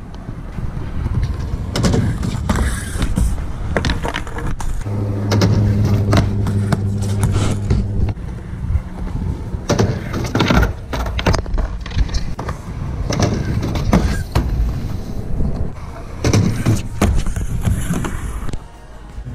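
Skateboard rolling on concrete, its wheels rumbling, with many sharp clacks and knocks of the board hitting the ground.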